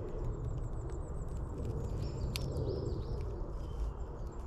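Dry dead leaves and bracken crackling and crunching as they are crushed by hand and dropped into a small steel wood-burning stove, with many scattered sharp crackles.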